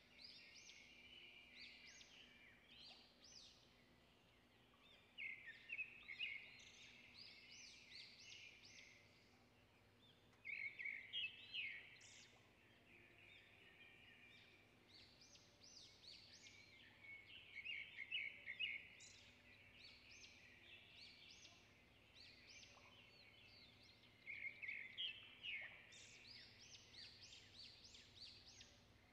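Faint bird chirping in repeated bursts of rapid high notes, a few seconds apart.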